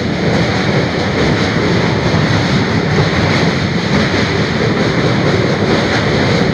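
Steady rumble of a moving passenger train heard from on board, its wheels running on the rails.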